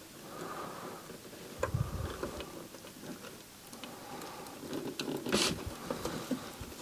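Faint handling sounds at a workbench: scattered small clicks and taps, a brief dull knock near two seconds in and a louder short rustle about five seconds in.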